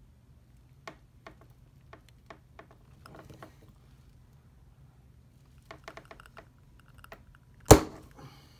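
Light clicks and taps of plastic and metal parts being worked by hand under the dash as the clutch master cylinder is pushed into its slot on the clutch pedal, ending near the end in one loud sharp snap with a brief ring as it goes back in.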